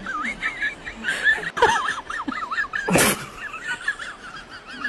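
Small monkeys chirping and squeaking in a rapid string of short, wavering high calls, with a sharp noisy burst about three seconds in.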